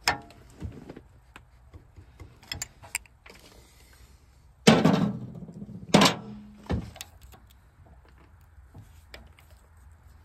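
Steel hand wrenches clanking and knocking as they are worked and put down around a hydraulic hose fitting. There is a sharp clank at the start and a few light ticks, then a louder clatter with some ringing about four and a half seconds in, followed by two more knocks.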